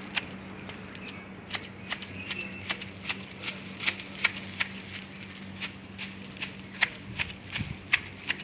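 Hand pruning shears snipping through leaves and twigs, sharp clicks at an uneven pace of about two to three a second.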